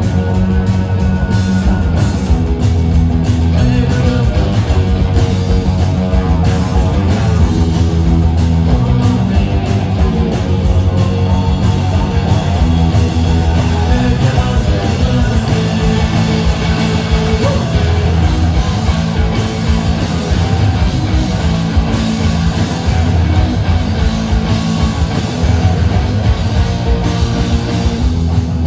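A rock band playing live and loud: electric guitars, bass guitar and drum kit.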